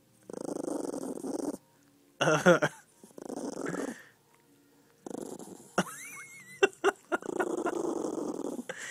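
Cat purring close to the microphone in bursts of about a second each, with short quiet gaps. There is a brief higher-pitched vocal sound about two and a half seconds in, and a few sharp clicks with a short rising whine around six seconds in.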